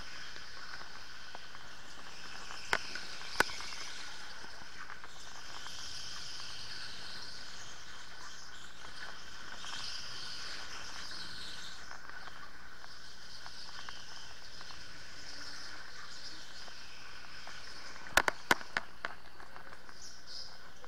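Electric go-kart driven hard on an indoor track: a steady high-pitched electric-motor whine with shifting higher tones from the drivetrain and tyres. There are two sharp clacks about three seconds in and a quick rattle of clacks near the end.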